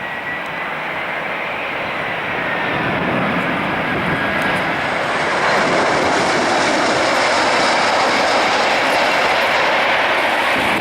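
Jet engine noise from a four-engine Airbus A340-313 on landing approach. It grows louder over the first five seconds or so, then holds steady as the aircraft passes close. A faint high whine drifts slightly down in pitch early on.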